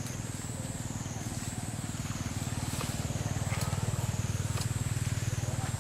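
A motor engine running: a low, steady, fast-pulsing rumble that grows somewhat louder about halfway through.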